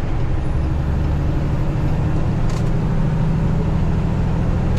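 Peterbilt 579 semi truck's diesel engine pulling steadily in sixth high gear, heard inside the cab with road noise, and a brief faint tick about halfway through.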